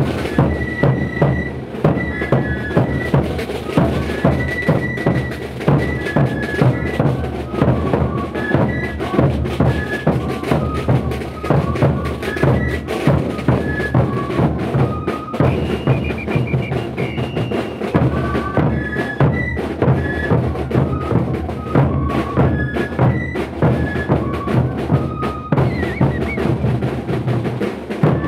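Live carnival band: large drums beat steadily, with a high melody of short held notes from wind instruments above them.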